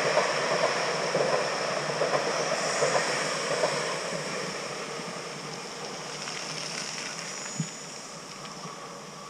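Electric commuter trains passing behind trees, a rushing rolling noise with regular wheel clacks over the first few seconds, fading steadily as the trains move away. A single knock near the end.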